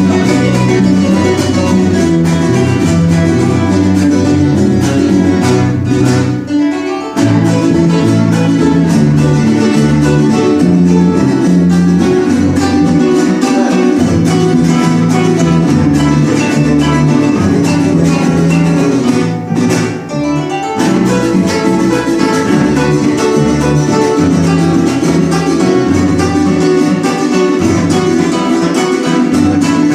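Guitar music with quick plucked notes, in a flamenco style, briefly dropping away twice.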